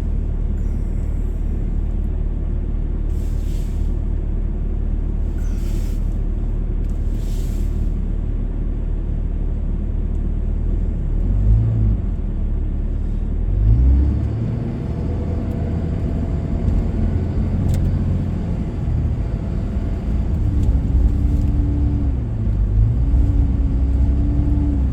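Vehicle engine and road rumble heard from inside the cab: a steady low rumble at first, then from about halfway through the engine note rises and falls several times as the vehicle moves off and speeds up in slow traffic.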